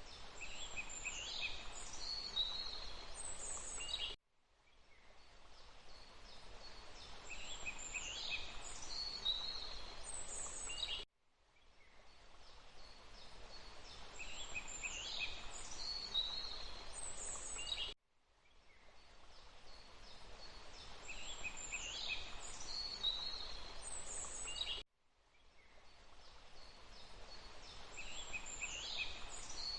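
Wild birds singing, a few high calls and falling whistles, over a steady rushing hiss. It is a short nature recording looped about every seven seconds: each repeat cuts out abruptly and fades back in, with the same calls each time.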